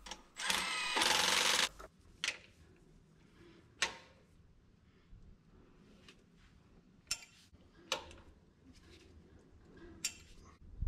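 A cordless impact gun runs briefly near the start, hammering a jake brake housing nut down onto a Caterpillar C12 cylinder head. After it come a few separate sharp metallic clicks as a torque wrench and socket are worked on the nuts.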